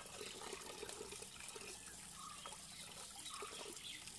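Water trickling and splashing faintly as karimeen (pearl spot fish) are washed during cleaning.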